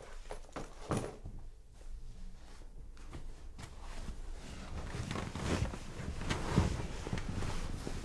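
Rustling and handling noises as bedclothes shift and a box is passed from one person to another, loudest between about five and seven seconds in, with a sharp click about a second in.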